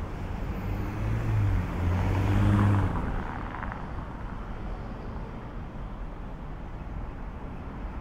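A motor vehicle goes by close at hand, its engine note climbing slightly and loudest about two and a half seconds in, then cutting away to a steady low hum of distant traffic.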